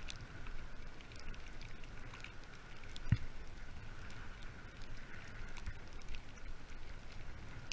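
Two-dog sled sliding along a snowy road at a run: a steady rumble and hiss from the sled on the snow, with scattered small clicks and rattles. One low thump about three seconds in.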